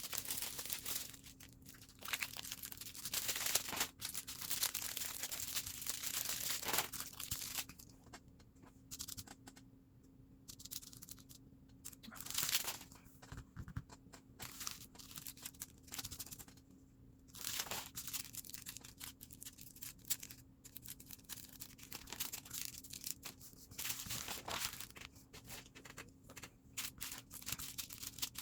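Small plastic bags of diamond painting drills crinkling and rustling in irregular bursts as they are handled and sorted.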